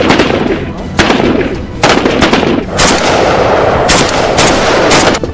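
Gunfire from rifles: a string of about seven single shots, roughly one a second, each followed by a long echoing tail.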